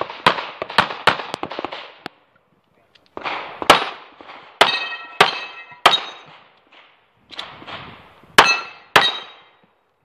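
Handgun shots fired in quick strings: a rapid run of shots at the start, a short pause, then more spaced shots. Several shots are followed by a ringing clang, the sound of steel targets being hit.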